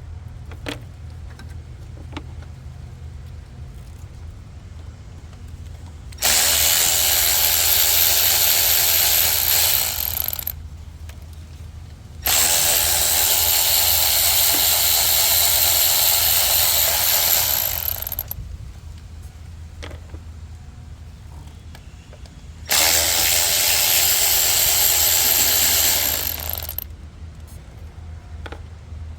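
Cordless power tool spinning out the T30 bolts of a 2.0 L turbo engine's PCV valve. It makes three runs of a steady motor whine, each starting suddenly, lasting about four to six seconds and tapering off as the bolt comes free.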